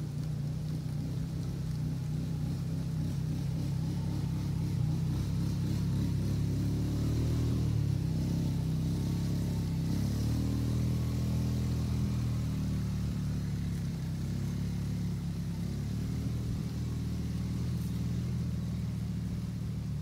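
A low engine drone that swells slightly toward the middle and eases off again, over a faint steady hiss.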